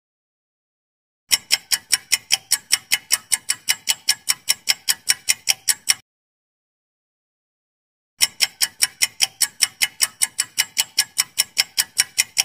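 Clock-style ticking sound effect of a quiz countdown timer, about five quick ticks a second. It starts about a second in and stops suddenly around six seconds, when the answer is revealed. After about two seconds of silence it starts again.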